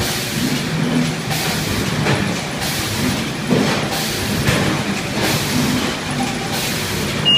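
Qumec CasePacker CP50 case-packing machine running as bags feed up its conveyor into the packer: a steady mechanical noise with a rush of noise repeating roughly once a second.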